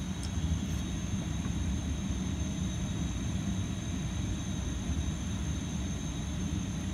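A steady low rumble with a faint, constant high-pitched whine over it, and one light click just after the start; no alarm is sounding.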